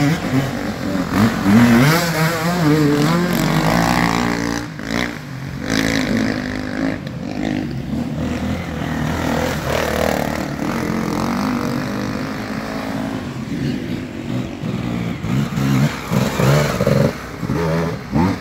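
Several enduro dirt bike engines revving up and down as the bikes ride past one after another, the throttle opening and easing off through the mud.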